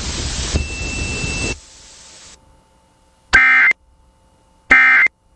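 Radio hiss for about a second and a half, then two short, identical bursts of Emergency Alert System end-of-message (EOM) data tones, each under half a second and about a second and a half apart. They mark the close of the alert broadcast.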